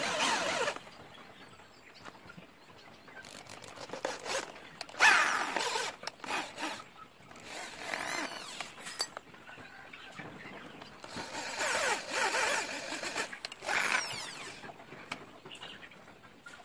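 Handheld electric drill driving screws to fix wire mesh to a metal cage frame, in short runs: one at the start, then several brief bursts, with a sharp click about five seconds in.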